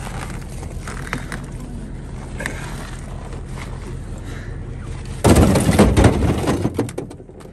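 A vehicle engine idling steadily. About five seconds in, a slab of river ice is dropped onto the pile of ice chunks in the metal vehicle bed, making a loud clatter and crunch that lasts about two seconds.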